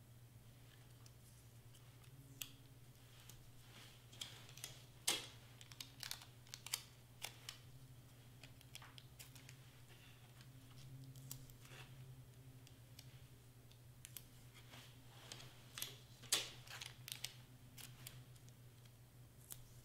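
Faint crackles and taps of cardstock being handled, slid and pressed flat on a cutting mat by hand, in irregular clusters, over a steady low hum.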